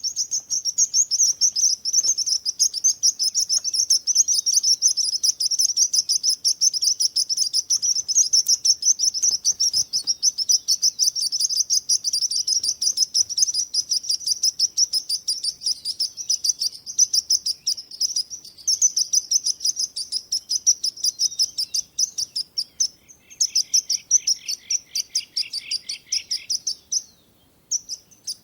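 Birds chirping in a fast, continuous stream of high notes. A second, lower series of chirps joins for a few seconds near the end, then the chirping breaks off briefly before resuming.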